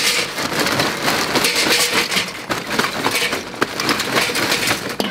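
Large lumps of quebracho lump charcoal poured into a metal chimney starter, clattering continuously against the metal and against each other.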